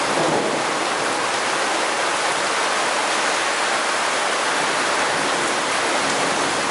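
Heavy rain pouring down, a steady unbroken hiss of falling water.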